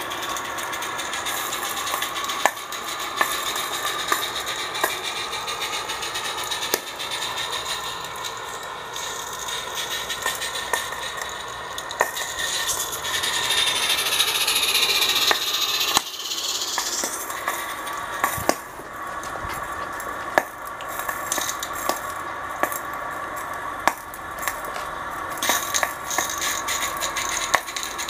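Small G-scale freight cars rattling along the track with frequent sharp clicks of wheels over rail joints. The hiss of a live-steam Accucraft Ruby locomotive swells about halfway through as it passes close.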